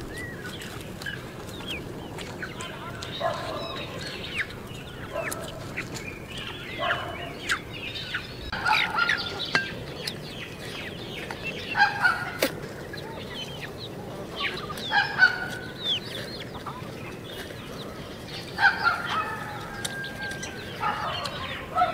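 Chickens clucking in short bursts of calls every second or two, over a low steady background.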